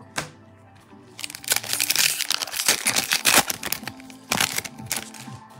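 Foil wrapper of a Topps Chrome trading-card pack being torn open and crumpled by hand. A loud crackling crinkle lasts about two and a half seconds, with a shorter burst about four seconds in, over steady background music.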